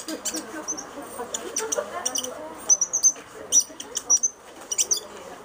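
Marker pen squeaking and scratching across a glossy autograph photo in short, quick strokes, over a low murmur of voices.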